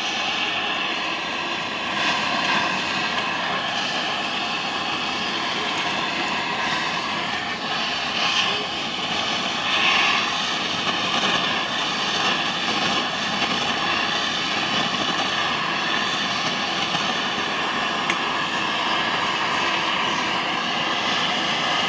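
A steady mechanical whir with a high whining edge, swelling slightly a few times, around two, eight and ten seconds in.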